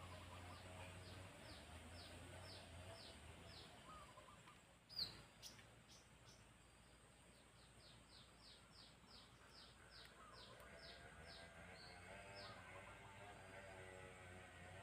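Faint bird calls: quick falling chirps repeated about three times a second, in two runs. A single sharp click about five seconds in.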